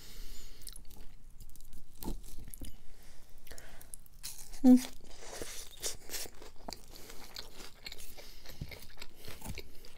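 Close-up chewing and crunching of a mouthful of green salad with lettuce, cucumber and noodles, in many small crisp crunches. A brief hum of voice comes about halfway through.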